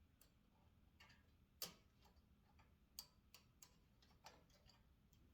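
Near silence with a few faint, scattered clicks, the clearest about a second and a half in and again at three seconds.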